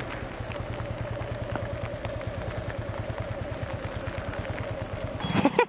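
TVS Apache motorcycle's single-cylinder engine idling steadily, with an even, rapid low pulse.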